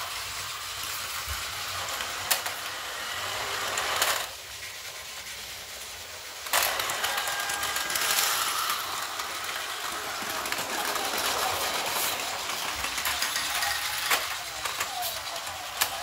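Plarail toy train's small battery motor running, with its plastic wheels rattling over the plastic track and several sharp clicks. The running sound drops away for about two seconds a few seconds in, then resumes.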